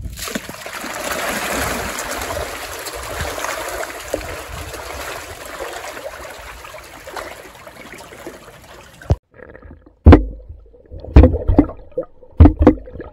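Swarm of catfish thrashing and splashing at the water surface in a feeding frenzy over dumped food scraps, a continuous churning splash. About nine seconds in it cuts off and gives way to muffled underwater sound broken by several loud, short low thumps.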